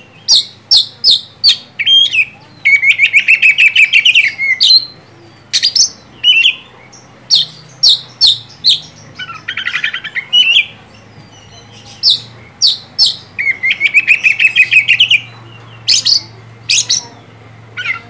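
Oriental magpie-robin (kacer) singing loudly in full song: a fast run of sharp, clear whistled notes broken by three rapid buzzy trills, one about three seconds in, one near the middle and one about three seconds before the end.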